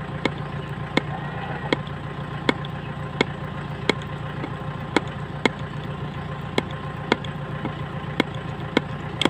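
Hand-lever grease gun being pumped, giving a sharp click about every three-quarters of a second as grease is forced into a grease nipple on a tractor joint. A steady engine idle hums underneath.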